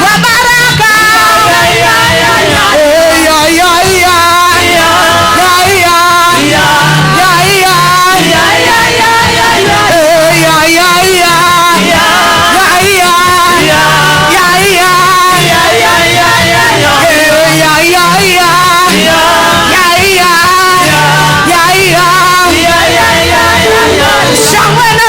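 Church praise music: several voices singing a wavering melody over a band, with a bass playing short repeated low notes.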